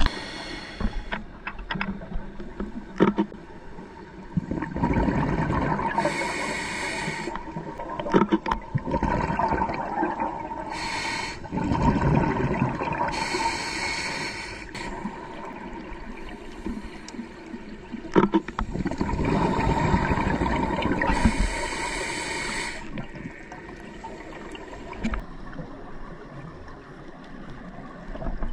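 Scuba diver breathing through a regulator underwater: three breaths about seven seconds apart, each a gurgling rush of exhaled bubbles followed by a hiss.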